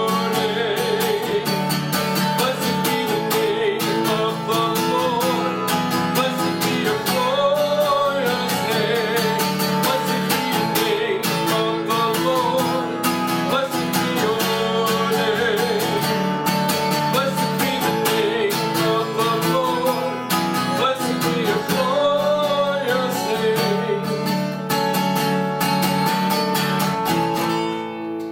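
Acoustic guitar music: many plucked notes under a melody line. It stops near the end, and the last chord rings out.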